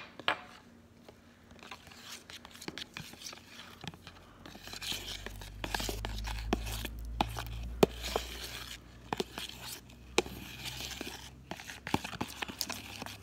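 A metal spoon stirring a thick soap-and-salt slime mixture in a plastic bowl: irregular clicks and scrapes of the spoon against the bowl, with a low rumble through the middle.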